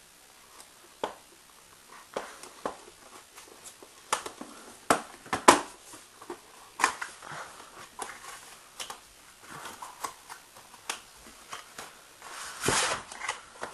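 Cardboard retail box being cut open with a multitool's knife blade and handled: irregular clicks, taps and scrapes of cardboard and packaging, with a longer scraping rustle near the end as the inner packaging slides.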